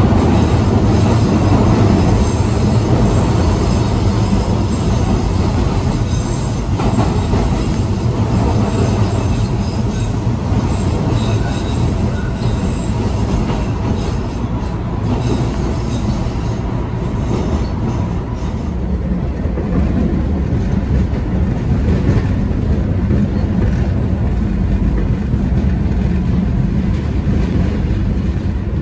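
MBTA subway train running at speed: a steady, loud rumble of wheels on rails and running gear, heard from inside the car. A faint high whine sits over it through the first half.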